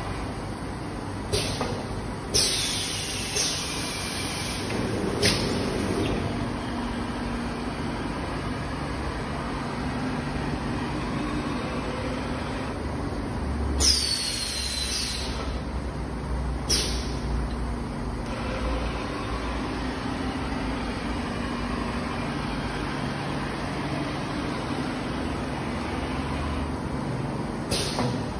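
Automatic meal box packing machine running with a steady mechanical hum. Sharp hisses of compressed air come in short clusters roughly every 13 seconds, some with a falling whistle, as its air-driven manipulator moves through a cycle.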